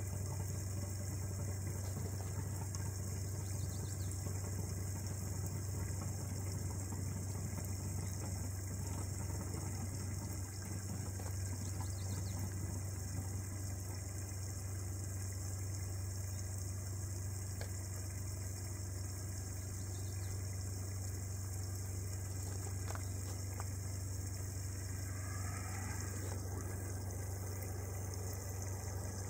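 Water running steadily through a hose into a pop-up camper's fresh-water fill inlet as the tank fills, over a steady low hum. A faint rising tone comes in near the end.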